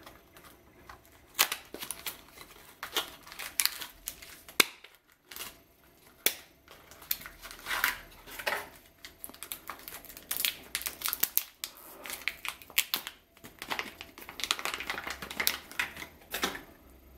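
Unboxing handling: a small cardboard box clicked and pulled open, then a metallised foil bag crinkled and torn open, giving irregular sharp clicks and crinkly rustling throughout.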